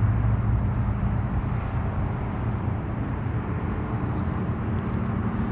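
Steady outdoor rumble and hiss over a low, even hum, with no distinct events.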